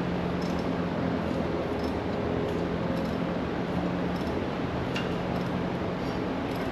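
Steady machine hum and rush, with faint light ticks about twice a second.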